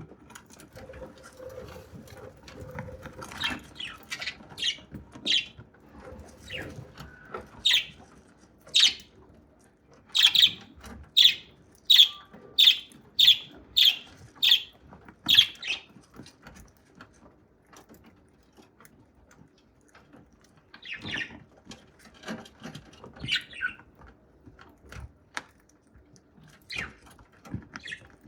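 Budgerigar pecking and cracking grains with its beak: a run of short, sharp, high clicks, loudest and most regular in the middle, at a little over one a second, with fainter scattered pecks around them.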